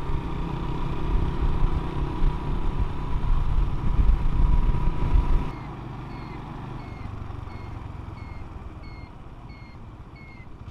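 Motorcycle riding along a road, its engine mixed with heavy wind rumble on the bike-mounted microphone. About halfway through, the noise drops sharply to a quieter running sound, and a short high chirp starts repeating about twice a second.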